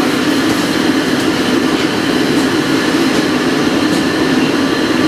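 Steady loud rush of a commercial wok range running, with a few faint metal clinks of a ladle against a wok or bowl.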